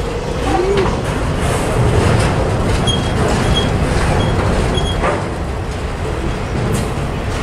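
Double-stack intermodal container train rolling slowly past: a steady low rumble of steel wheels on rail with scattered clicks, and brief faint high squeals coming and going around the middle.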